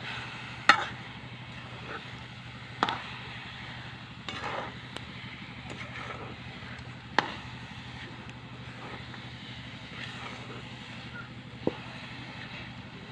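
A spoon stirring grated coconut and sugar in a metal pan over a wood fire, with a low steady sizzle as the sugar syrup cooks and four sharp clinks of the spoon against the pan, the loudest about a second in.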